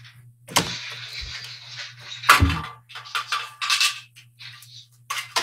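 Rustling and knocking of objects being handled, with a louder thud about two and a half seconds in, over a steady low hum.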